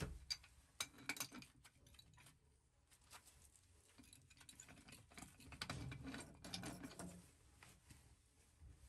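Faint scattered clicks and light scraping of steel pipe wrenches being set onto and worked against brass threaded valve fittings on a copper water line, with gloved hands handling them. The handling grows a little louder about six seconds in.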